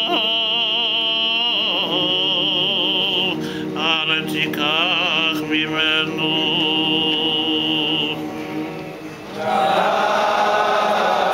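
A cantor chanting Selichos prayers solo in a melismatic, quavering style, his pitch wavering through ornaments. About nine and a half seconds in, many voices come in together, the congregation chanting along.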